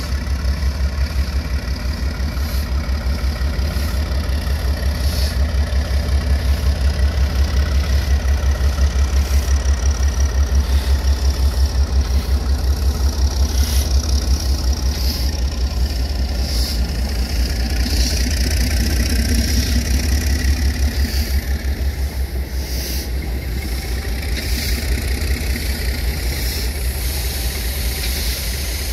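NSWGR 48 class diesel-electric locomotive's six-cylinder Alco engine running under load while shunting steam locomotives, a loud, fast, even low beat. The beat grows louder through the middle and eases somewhat near the end.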